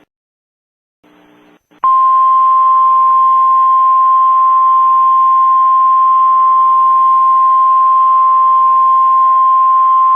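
Emergency alert attention tone: after a moment of silence and a brief faint hiss, one loud, steady, high-pitched tone begins about two seconds in and holds, over faint static hiss.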